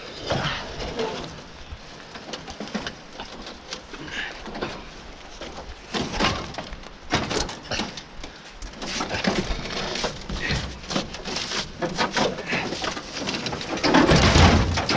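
Scattered clanks, scrapes and footsteps on charred debris as a heavy, burned trailer axle is carried and hoisted onto a pile of scrap metal. A heavier thump and clatter comes near the end as the axle goes up onto the load.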